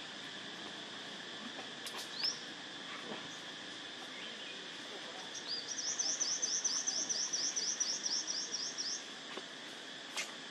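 A bird calling: a single rising chirp about two seconds in, then a quick run of about fifteen rising whistled notes, some five a second, lasting about three seconds from around halfway. A steady high insect drone runs underneath.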